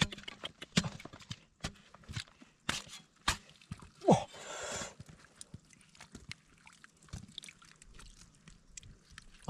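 Hands scooping and splashing in a shallow muddy puddle around a large trapped fish, with scattered knocks and scrapes of clods and a small shovel, and a louder splash shortly after four seconds in.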